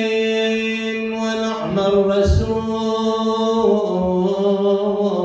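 A solo voice chanting an Arabic Muharram mourning lament without accompaniment. It sings the words "wa ni'ma ar-rasul", drawing each syllable out into long held notes that step slowly downward in pitch.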